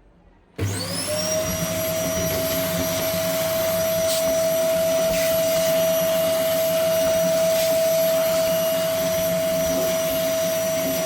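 An electric cleaning machine switches on about half a second in. Its motor spins up to speed with a rising whine, then runs loud and steady with a constant high hum and rushing air.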